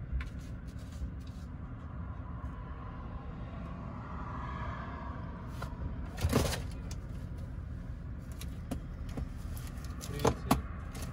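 Chevrolet engine idling, a steady low rumble heard inside the cabin. A brief loud noise about six seconds in and two sharp knocks near the end.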